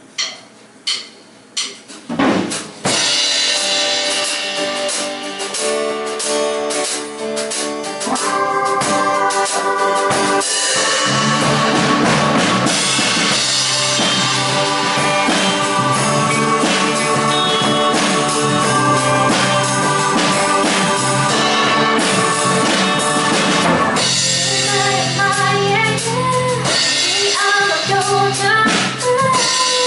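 Small band playing live: drum kit, bass, acoustic and electric guitars and keyboard, coming in together about two and a half seconds in after four sharp clicks of a count-in. A woman's singing comes in near the end.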